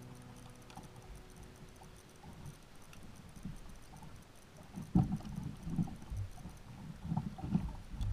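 Irregular dull bumps and knocks on a plastic kayak as a small fish is handled and unhooked, the loudest about five seconds in. A held music chord fades out at the start.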